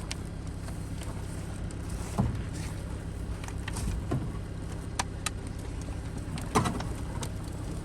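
Cat 242B3 skid steer's diesel engine running steadily, with a few separate knocks as it works.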